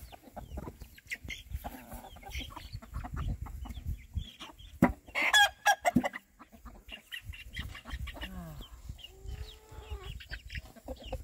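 Backyard chickens clucking and chirping as they gather to be fed, with a burst of louder calls about five seconds in.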